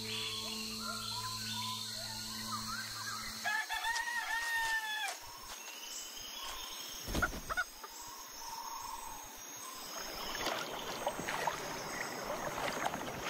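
A rooster crowing, one drawn-out crow about four seconds in, after a steady low hum.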